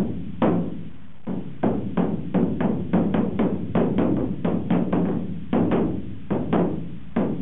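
A large barrel drum beaten with two sticks: sharp, ringing strikes, a few a second in an uneven rhythm.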